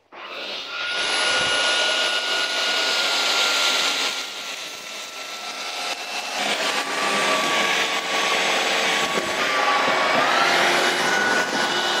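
Shark Detect Pro IW3611 cordless stick vacuum switched on and running, vacuuming up rice grains scattered on the floor: a steady motor whine with a rush of airflow. The whine drops lower and quieter for a while in the middle, then glides back up about ten seconds in.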